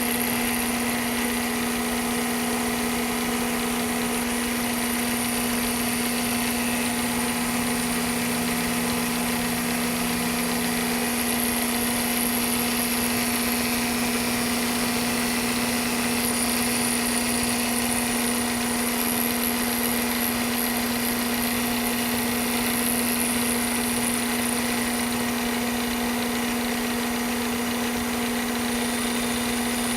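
Two-axis milling machine running steadily as its cutter takes a contour pass in half-inch aluminium plate: a constant hum with a thin high whine that comes and goes.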